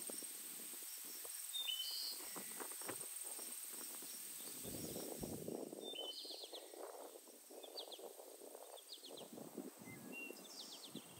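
Small birds chirping outdoors, short quick trills repeated every second or two, over faint irregular lower noises. A thin steady high tone fades out about halfway through.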